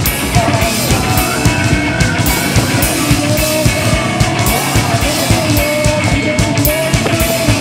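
Rock music with a fast, steady drum beat and a singing voice.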